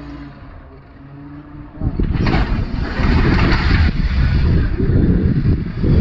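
Off-road vehicle engine running steadily, then loud revving and rumbling from about two seconds in.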